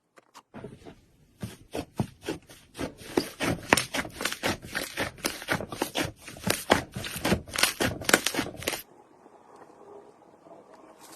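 Slime being squeezed and pressed by hand, giving a fast, irregular run of sticky clicks and pops. It starts about half a second in and stops near the end, leaving only a faint hiss.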